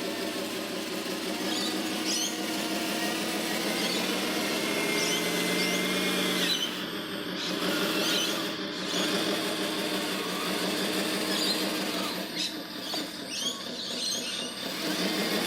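Small electric motors and gearboxes of radio-controlled construction models whining, the pitch rising and falling as they work, with scattered squeaks.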